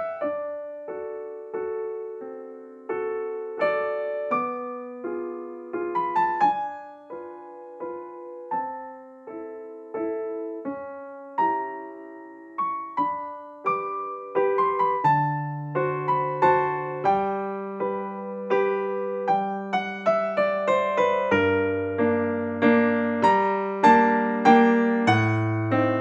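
Background piano music: a gentle melody of single fading notes, with a deeper bass line coming in about halfway through and the texture growing fuller toward the end.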